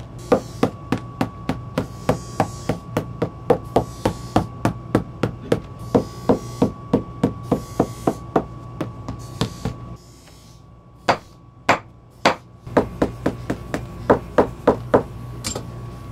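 Shoemaker's hammer striking in a steady series, about three blows a second, with a short pause about ten seconds in, broken by a few single blows, before the regular hammering resumes.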